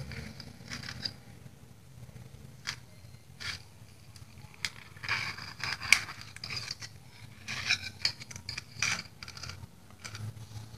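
Metal knife scraping and clicking against a steel bowl while cutting and lifting out pieces of a soft, set poppy-seed pudding, in short irregular strokes over a faint low hum.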